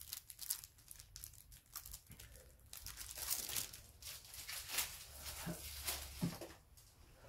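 Plastic shrink-wrap on a deck of game cards crinkling and tearing as it is unwrapped by hand: a rapid, irregular crackle.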